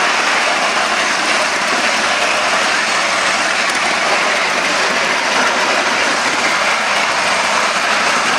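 3.5-inch gauge LBSC Maisie live-steam Atlantic model locomotive running along miniature railway track, heard as a steady, even rush of noise.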